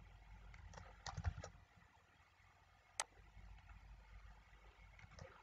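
Faint computer keyboard keystrokes: a short cluster of clicks about a second in and a single sharp click about three seconds in, with a few lighter taps between.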